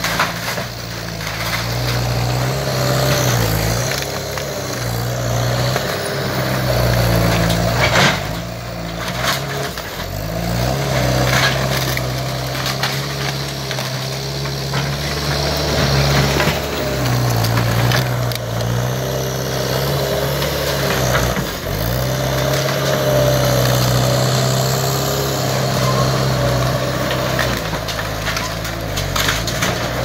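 Skid steer engine running hard under load, its note sagging and picking up again every few seconds as it works. Occasional cracks and crunches of demolition debris break through, loudest about eight seconds in and again past the twenty-second mark.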